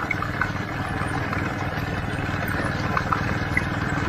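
A motor vehicle's engine running steadily as it travels along a dirt track, a low, even rumble.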